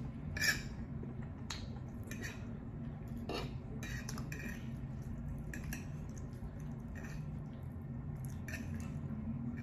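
A metal fork clinking and scraping against a plate as food is scooped up, with a scatter of short wet mouth and chewing sounds, over a steady low hum.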